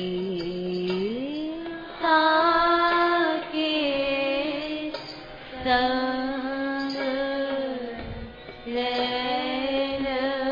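Devotional Hindi kirtan singing: a voice sustaining long drawn-out melodic notes and gliding between them, in phrases separated by brief pauses.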